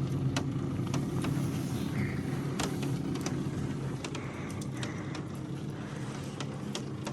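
Steady mechanical hum of an open cable lift's hoist lowering the basket down a volcanic shaft, with scattered light clicks and knocks.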